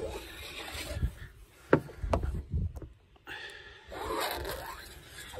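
Hand scraper blade drawn in repeated strokes across new HDPE plastic sheet, scoring the surface to strip its oxidized skin before plastic welding. A few sharp clicks come near the middle.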